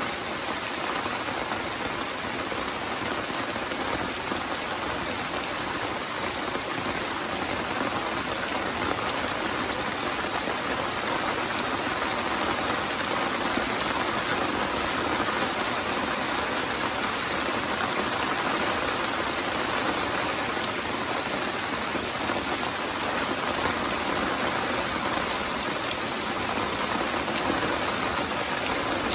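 Steady rain falling, a dense, even hiss of many small drops that neither builds nor stops.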